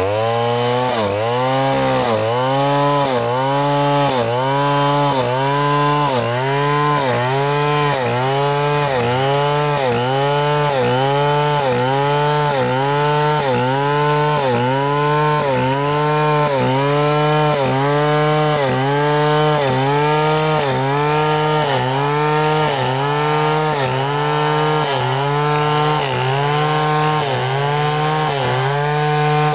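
Large two-stroke chainsaw (a New West 070 with a Stihl bar) running at full throttle while ripping a log lengthwise. Its engine pitch dips under the load of the cut and recovers in a steady rhythm, a little faster than once a second.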